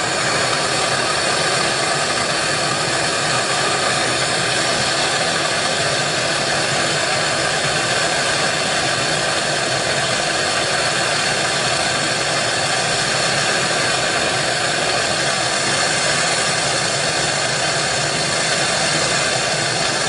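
Bernzomatic propylene hand torch burning with a steady, unbroken hiss as its flame heats a small padlock in a vise to melt out the brass core.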